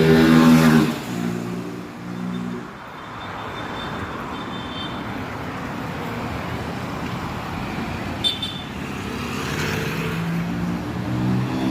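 Road traffic: a car's engine passes loudly at the start, then a steady hiss of traffic, and another vehicle's engine rises near the end.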